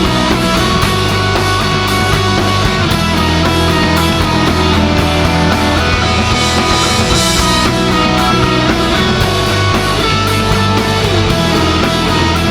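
Loud instrumental passage of a live rock band: distorted electric guitars, bass and drum kit playing steadily, with no singing.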